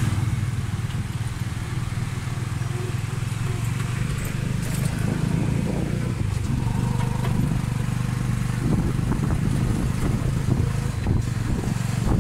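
Motorcycle engine pulling a Cambodian tuk-tuk carriage, heard from the passenger seat: a steady low engine hum with road noise.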